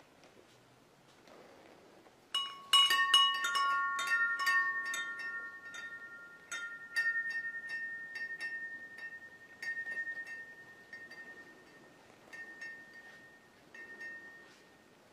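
Hanging wind chime set moving about two seconds in: a quick flurry of clinks with ringing tones, then fewer, fainter strikes every second or so as it settles.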